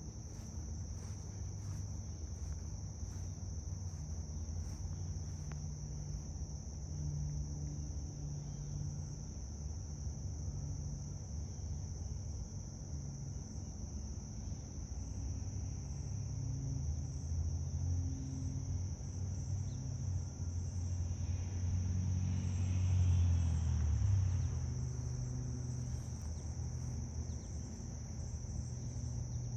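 Steady high-pitched insect chorus, one unbroken shrill tone throughout. A low rumble sits underneath and swells briefly about 22 seconds in.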